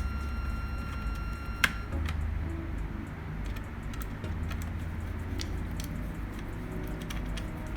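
Small scattered clicks and taps of a screwdriver working the screws that hold a 2.5-inch SSD in its caddy in a laptop's drive bay. One sharp click comes about a second and a half in.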